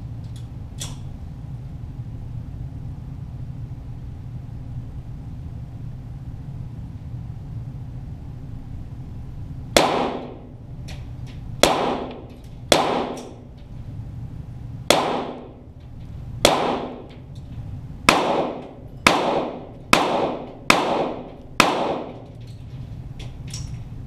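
.22 Walther GSP target pistol shots heard from beside the target: ten sharp reports, each ringing briefly in the range, spaced a second or two apart and coming faster near the end, about one a second. A steady low hum runs underneath.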